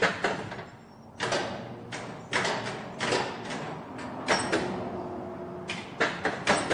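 Irregular metallic clanks, knocks and scraping from a crucible-lifting rig and its hoist as a crucible is lowered into an induction furnace.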